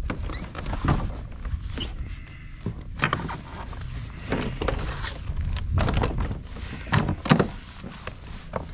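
Scattered knocks and thunks of fishing gear being handled against a plastic fishing kayak, about half a dozen, with small clicks between them, over a low steady rumble.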